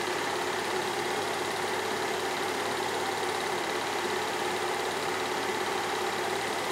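Cine film projector running: a steady mechanical whirr that never changes in level or pitch.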